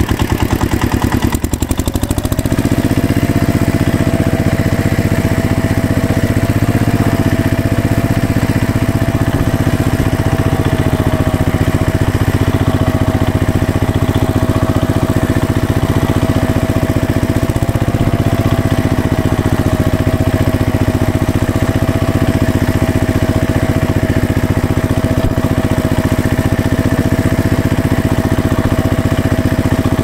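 Tractor engine running at a steady speed, with a shift in its sound about two seconds in.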